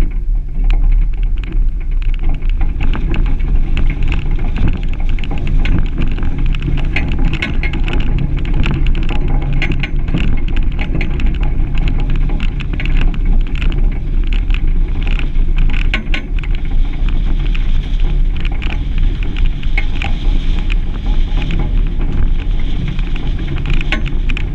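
Suzuki Grand Vitara 4x4 driving along a rough gravel track: a steady low rumble of engine and tyres, with constant crackling and knocking of stones under the tyres.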